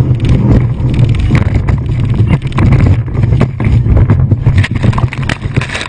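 Fountain speedboat running fast: wind buffeting the microphone over the engine's low rumble, with frequent sharp knocks and bangs.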